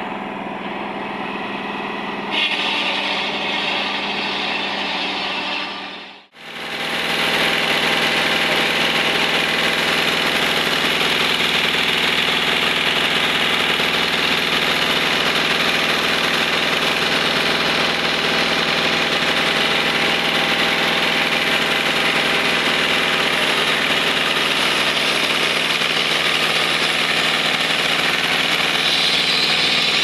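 Tractor engine running steadily, turning the propeller shaft that drives a circular sawmill blade through double V-belts. There is a brief break about six seconds in, after which the engine and the spinning drive are louder and closer.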